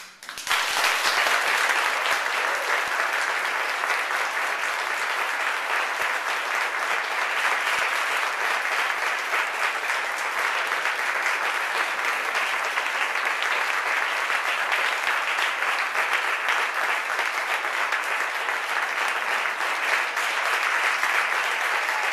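An audience applauding: the clapping breaks out suddenly, swells within about half a second, then keeps up steadily.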